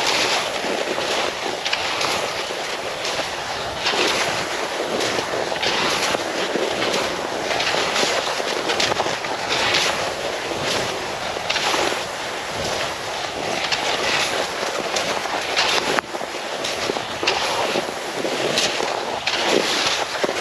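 Cross-country skis scraping and swishing over the snow in a steady stride, one stroke about every one to two seconds, under continuous wind noise on the microphone.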